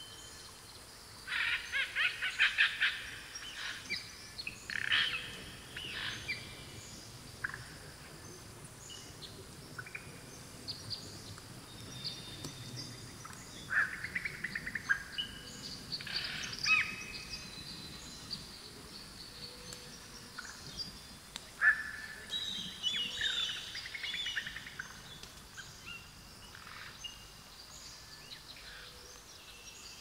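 Forest birdsong: several songbirds singing and calling in separate bouts, starting with a fast run of repeated notes about a second in, over a faint steady hiss.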